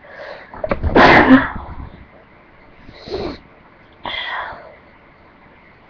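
A person sneezes loudly once, about a second in, after a short intake of breath. Two shorter, quieter breathy sounds follow around the middle.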